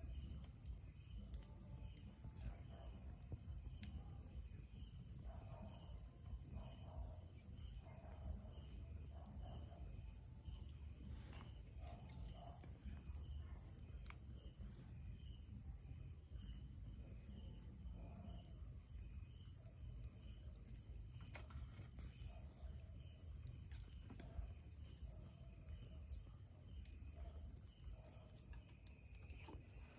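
Night insects, crickets, keeping up a steady high drone with evenly repeating chirp pulses. Occasional faint crackles come from the wood fire.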